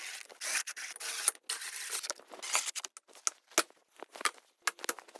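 Wooden bed slats being set one after another onto a metal bed frame: rubbing and scraping for the first two seconds or so, then a quick run of sharp wooden clicks and clacks.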